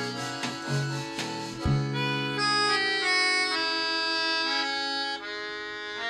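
Instrumental music: a rhythmic strummed pattern with bass notes for about two seconds, then a run of long held notes, each lasting a second or so.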